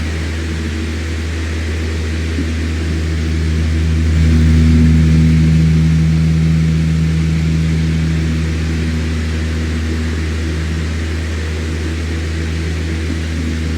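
Electric fan running steadily: a low motor hum under the rush of moving air, swelling a little about four to five seconds in and then easing back.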